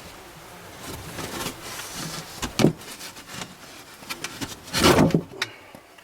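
Rustling and scraping with a few sharp knocks, as of someone shifting about and handling things on wooden attic boards. About five seconds in comes a louder rushing noise lasting around half a second.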